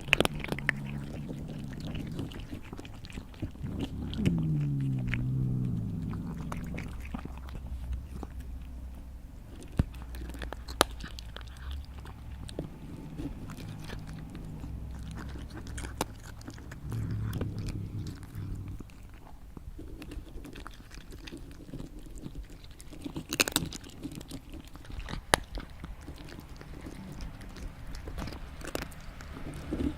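A cat eating: wet chewing and biting with scattered sharp crunches at irregular intervals. A low drone runs underneath and drops in pitch about four seconds in.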